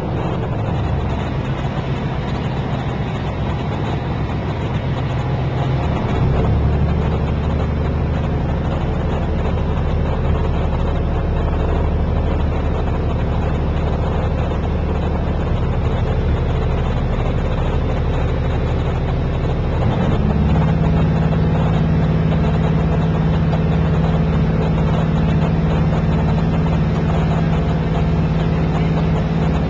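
Canal tour boat's engine running steadily as the boat cruises. Its note changes about six seconds in and again about twenty seconds in, a little louder each time.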